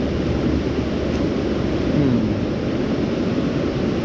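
Steady rushing of a river running high and fast after rising water.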